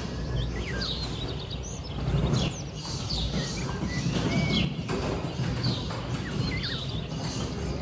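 Birds chirping and whistling in an aviary: many short rising and falling calls, several a second, over a steady low background rumble.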